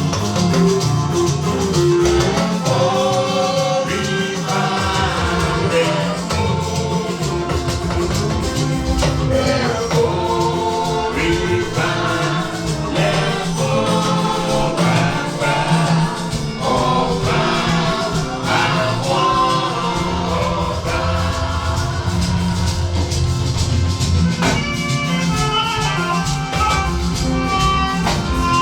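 A church choir and congregation singing a hymn with instrumental accompaniment and steady percussion.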